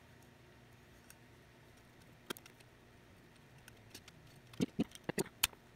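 Small sharp clicks of a metal tool and plastic pins against a Nikon 70-200mm f/2.8 lens barrel as the pins are pushed back into their holes: a single click a little past two seconds in, then a quick run of about five clicks near the end.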